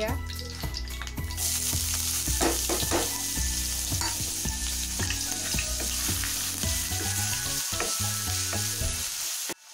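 Chopped onion frying in hot oil in a kadhai: a loud sizzle that starts about a second and a half in, with a wooden spatula scraping and knocking against the pan as it is stirred. The sizzle cuts off suddenly just before the end.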